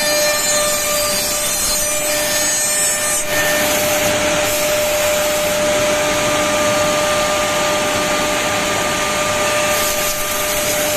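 Woodmaster WM-D200FR double-end four-axis CNC tenoning machine running, its spindle motors giving a steady whine under the noise of cutters milling a wooden workpiece. About three seconds in, the noise turns brighter and hissier.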